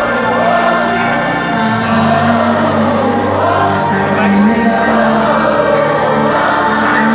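Live pop concert music heard from among the audience in a large hall: singing voices over held bass and synth notes that change every second or two, loud and steady.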